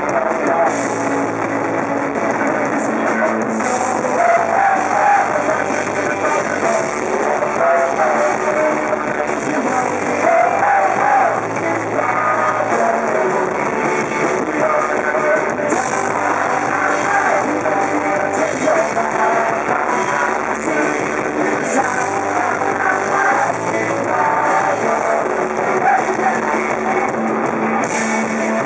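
Rock band playing live with electric guitars, bass and drums and a singing voice, in a loud, muddy audience recording.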